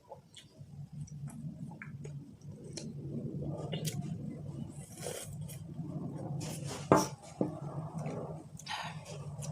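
Cutlery and glassware clinking and scraping against a bowl during a meal, with a sharp knock about seven seconds in, over a steady low hum.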